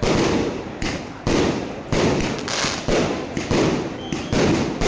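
Fireworks going off: a run of loud bangs, about one a second, each trailing off before the next.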